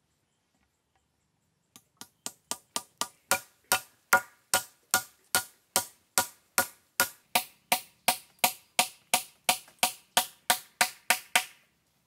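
A steady run of sharp blows on wood from a hand tool, chopping or driving, about three a second. The blows start about two seconds in, grow louder over the first few strikes, each with a short hollow knock, and stop just before the end.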